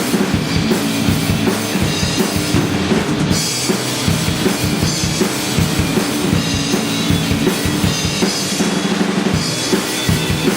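Live rock band playing an instrumental passage: a drum kit keeps a steady driving beat on bass drum and snare under sustained bass and guitar.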